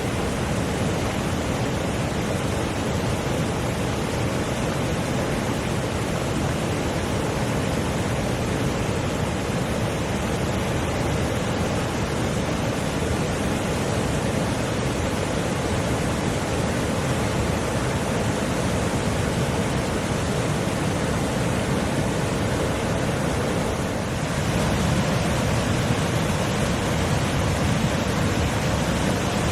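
McDonald Creek, a fast mountain creek, rushing over its bed in a steady, even roar of flowing water. About three-quarters of the way through it briefly dips, then runs a little louder.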